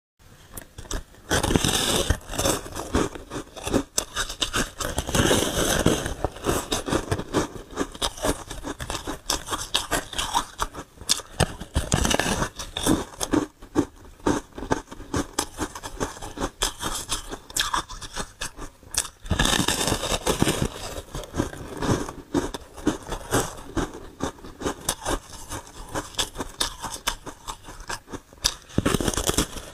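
Close-up sound of a slab of frosted ice being bitten and chewed. Loud crunching bites come every few seconds, with crackling and chewing of ice chunks in between.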